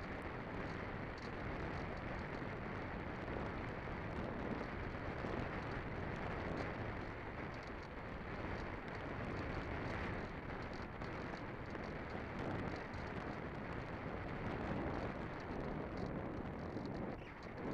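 Wind buffeting the microphone: a steady rough rush with no motor tone, easing briefly near the end.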